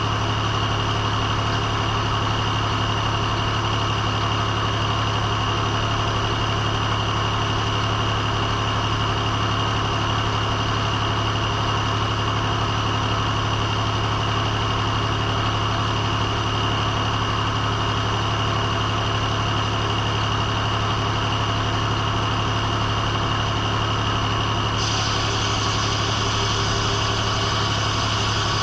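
Circle sawmill running steadily at constant speed: a steady engine drone with a high, even whine over it, and a slight change in the upper sound near the end.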